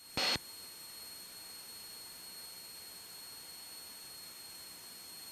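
Aircraft headset and radio audio feed: a brief burst of static right at the start as the radio transmission ends, then a steady faint hiss with a thin, high-pitched electronic whine.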